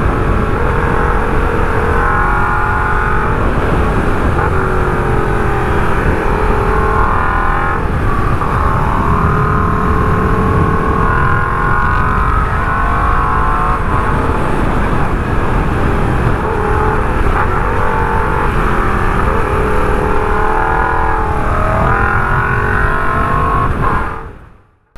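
Motorcycle engine pulling through a ride on winding road, heard from a helmet camera: revs repeatedly rise and fall as it accelerates out of corners and shifts. The sound drops away abruptly about a second before the end.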